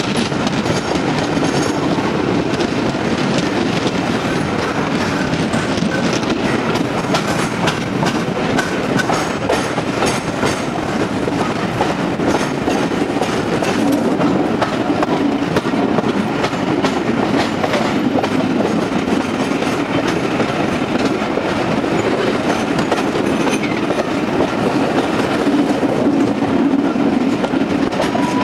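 Train running steadily with a continuous rumble, its wheels clicking over rail joints.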